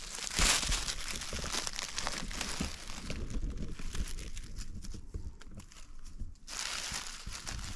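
Rustling and crackling of forest undergrowth, leaves and twigs brushed and crunched as someone moves through it, strongest about half a second in, with a quieter stretch in the middle before it picks up again near the end.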